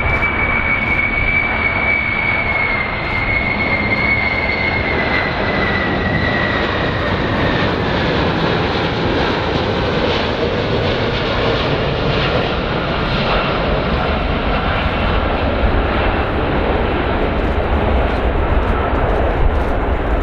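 Boeing 747 VC-25A on landing approach: its four General Electric CF6 turbofans give a steady low rumble with a high whine that falls slowly in pitch.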